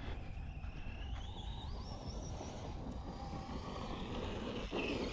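Electric motor of a Team Associated Rival MT10 RC monster truck whining faintly at a distance. The whine rises in pitch over the first couple of seconds as the truck speeds up.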